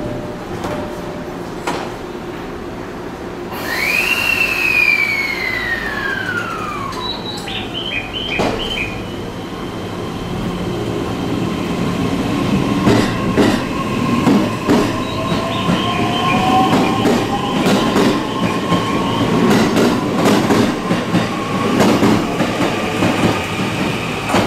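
Sagami Line E131-series electric train pulling out of the station. A high tone falls steeply in pitch a few seconds in, then the motors' whine rises slowly in pitch as the train gathers speed, with wheel clatter and sharp clicks over the rail joints.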